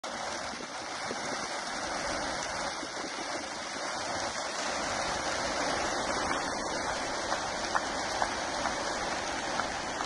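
Thousands of racing pigeons taking off at once from the opened crates of transport trailers, their wings making a steady rushing sound like a waterfall, with a few sharp clicks in the second half.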